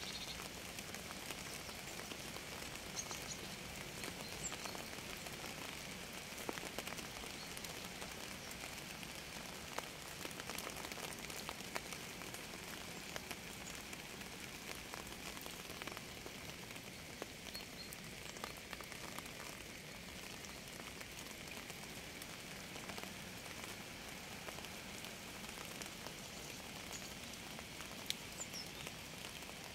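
Steady rain falling on surfaces: a dense, even patter of drops, with a few louder single drips standing out now and then.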